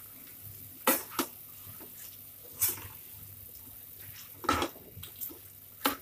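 A slotted spatula scraping and knocking against a non-stick kadhai while thick cooked pumpkin sabzi is stirred, in about six separate short strokes.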